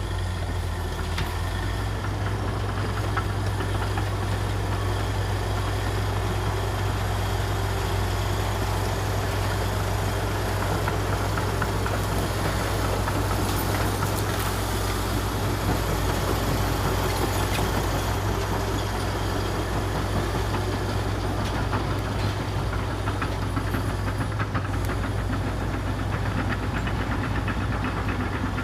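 Komatsu D61EX bulldozer's diesel engine running steadily, with a constant low hum.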